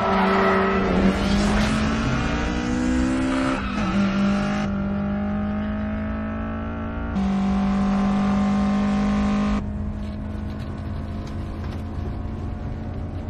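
Sports-car engine sound effects held at high revs during a mountain-pass race, a steady engine note whose pitch and loudness change abruptly a few times as the shots cut, about 4, 7 and 10 seconds in.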